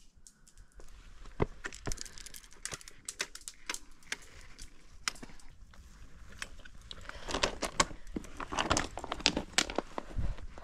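Trekking pole tip clicking and shoes scuffing on bare limestone and loose stones on a steep rocky descent, with sharp irregular taps throughout. A denser run of scraping comes about seven seconds in.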